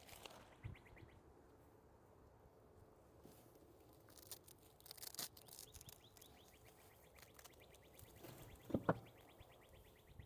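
Faint rustling and scraping of potting soil and a fabric grow bag being handled, with a few soft knocks, about four seconds in and again near the end. A faint, high, fast chirping trill sounds in the background at the start and near the end.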